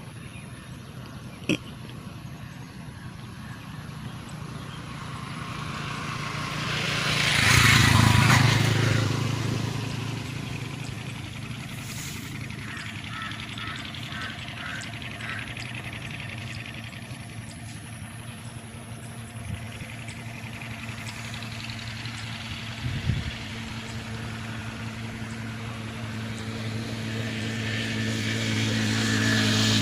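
Motor vehicle passing, loudest about eight seconds in, followed by a steady engine hum that builds again near the end.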